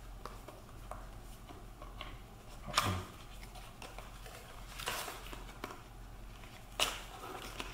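A small cardboard accessory box being handled and opened by hand: light clicks and paper rustles, with two louder sharp sounds, about three seconds in and near the end.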